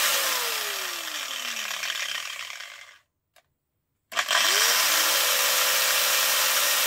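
700-watt electric grinder switched off and winding down: its whine falls steadily in pitch and fades over about two seconds. After a second of silence it is switched on again, spins up within half a second and runs steadily at full speed.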